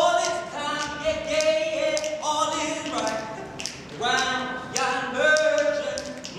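A group of men singing a cappella in harmony, holding long notes that move together in steps, with sharp clicks about twice a second keeping time.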